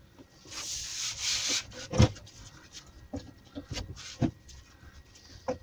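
Hands sliding and rubbing across a sheet of half-inch MDF on a workbench, with a sharp knock about two seconds in and several lighter knocks after as the sheet and clamps are handled.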